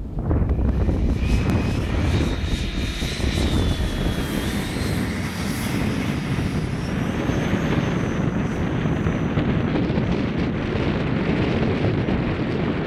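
Electric ducted fan of an E-Flite Habu RC jet, a Stumax fan on an 8S battery, spooling up for takeoff and climb-out: a loud rush of air with a whine that rises in pitch about two seconds in and climbs higher again midway.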